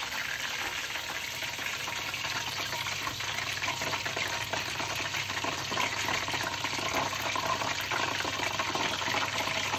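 Hot oil sizzling steadily in a deep-fat fryer, a little louder towards the end.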